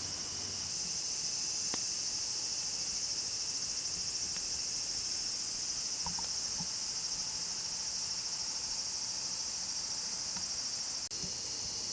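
Night insects, crickets among them, trilling in a steady, high-pitched chorus, with a few faint clicks.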